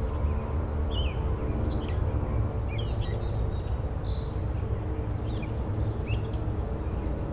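Birds chirping in many short, quick calls over a steady low rumble.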